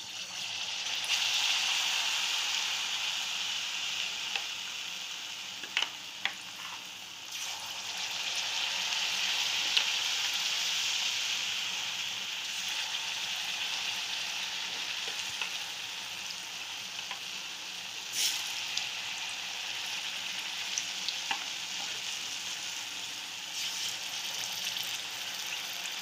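Buckwheat-flour-battered potato slices sizzling as they deep-fry in hot ghee in a kadhai, a steady hiss that swells as more pieces are dropped in. A few light clicks of the spoon against the pan.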